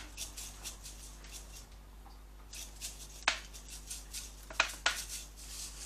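Sharp clicks and taps from seasoning containers being handled over a tray of lamb. They come in a few short clusters, with the loudest single click a little past three seconds in.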